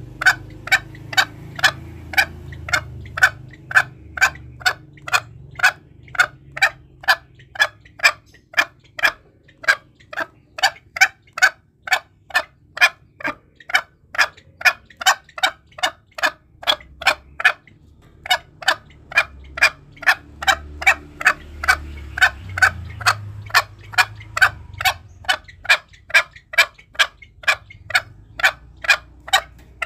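Green junglefowl calling: an even run of short, sharp notes, about two a second, breaking off briefly twice.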